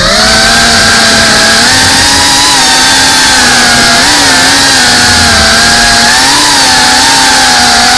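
FPV quadcopter's motors and propellers whining steadily in flight at a constant throttle, the pitch wavering slightly up and down with small throttle changes.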